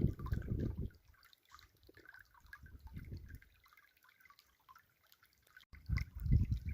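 River water trickling and dripping over stones in a steady patter of small splashes. Bursts of low rumble, the loudest sound here, come at the start, around three seconds in and near the end.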